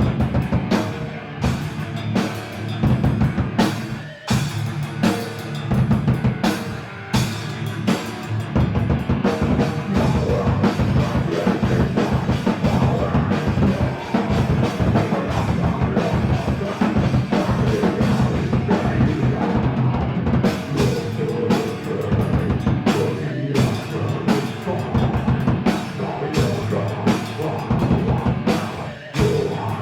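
Rock music driven by a drum kit, with kick and snare hits keeping a steady beat under dense instruments.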